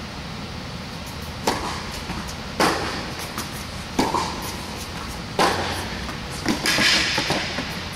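Tennis ball being hit by rackets and bouncing on a hard indoor court during a rally: five sharp pops about a second apart, each with an echoing tail, over a steady low hum from the hall.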